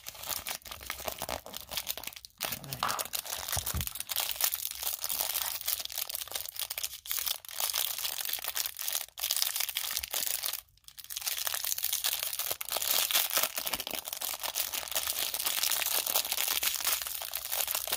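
Thin plastic wrappers crinkling and tearing as small toy parts are unwrapped by hand, with many small crackles throughout.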